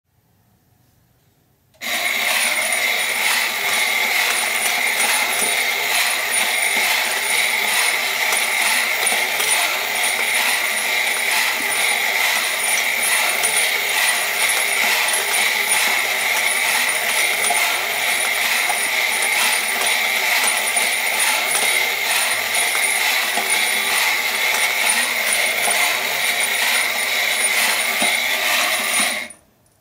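Battery-operated Yonezawa Happy the Clown Puppet Show tin toy running: its motor and gears whirring with a steady metallic jingling and rattling as the clown works the Pinocchio puppet. It switches on suddenly about two seconds in and cuts off just before the end.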